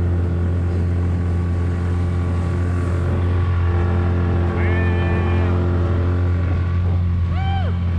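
Small outboard motor pushing an inflatable dinghy at an even cruising speed: a steady, unchanging engine drone with a low hum, over a hiss of water and wind.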